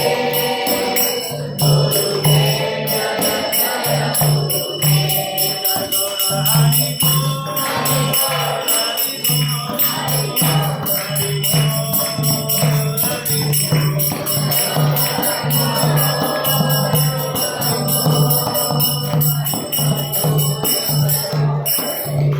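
Group devotional chanting (kirtan) with hand cymbals ringing in a quick, steady rhythm over a low repeated beat. It all stops abruptly near the end.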